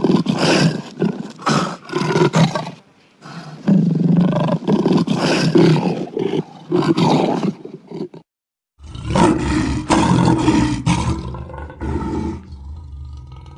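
Tiger roaring and growling in two long spells, broken by a short silence about eight seconds in. A deeper roar with a low rumble follows and dies down to a quieter, steady growl near the end.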